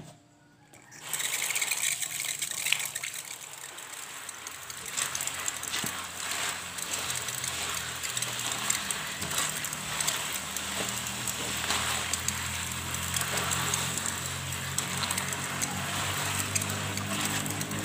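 Tap water running onto a plastic colander of chopped genjer in a stainless steel sink, with hands rubbing and swishing the wet leaves and stalks. The water starts about a second in.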